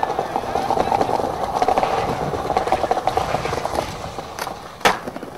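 Skateboard wheels and trucks on a concrete ledge: a steady gritty rolling-and-grinding scrape, then one sharp clack of the board near the end.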